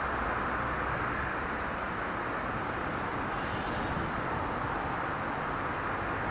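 City street traffic: a steady wash of car engine and tyre noise, with no single vehicle standing out.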